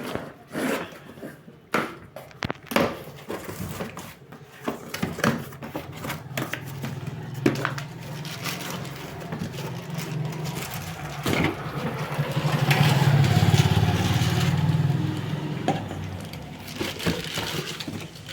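Packaging being handled, with scattered crackles, knocks and scrapes. A low steady hum sets in after a few seconds, swells to its loudest past the middle and fades near the end.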